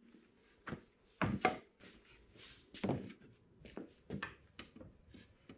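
Pine boards and frame pieces knocking and clunking against each other and a wooden workbench as they are handled and set in place. About eight short, irregular wooden knocks, the loudest two coming a little over a second in.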